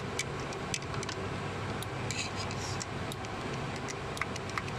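Scattered light metallic clicks and ticks of hand work on the timing chain's hydraulic tensioner, a screwdriver and parts touching metal, over a steady workshop hum.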